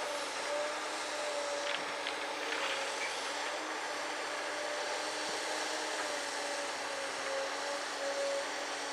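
Komatsu PC200LC hydraulic excavator's diesel engine and hydraulics running steadily under load as it digs with its boom and bucket, with a slightly wavering whine over the engine drone. A few faint scrapes come about two to three seconds in.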